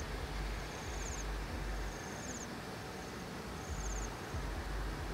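An insect chirping in short, high-pitched pulsed trills, three of them, about a second and a half apart, over a steady low rumble and a soft outdoor hiss.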